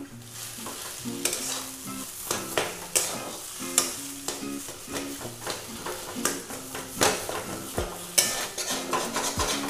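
Steel spatula stirring and scraping mashed potato filling around a steel kadai while it fries in oil: a steady sizzle with frequent sharp scrapes and knocks of the spatula against the pan.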